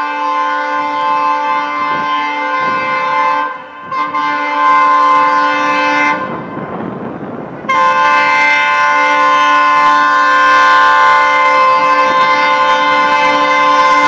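EMD WDP-4 diesel locomotive's horn sounding long, continuous blasts, a steady chord of several tones, as the express approaches on a through run. The horn breaks briefly about four seconds in, then drops out for about a second and a half just past six seconds, leaving a rushing noise from the oncoming train. It then sounds again and holds.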